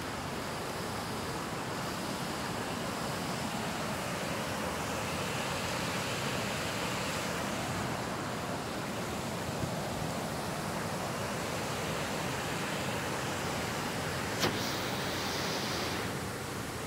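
Steady rush of river water pouring over a weir, with a single sharp click about fourteen seconds in.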